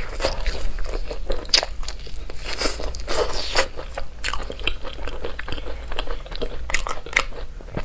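Close-miked biting and chewing of crisp fried skewer food, a quick run of crunches one after another.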